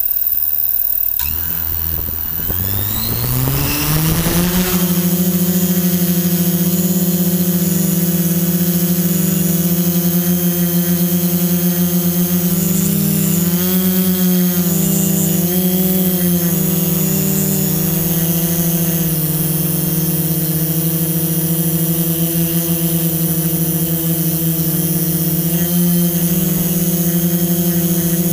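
Multirotor drone's electric motors and propellers spinning up for takeoff, the whine rising in pitch over the first few seconds, then a steady high hum in flight that wavers up and down in pitch partway through as it manoeuvres.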